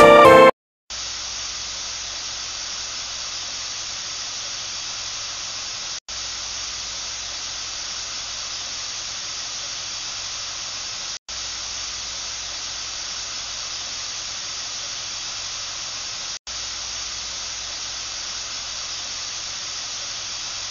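Steady, even hiss with a faint low hum underneath, cutting out for an instant three times.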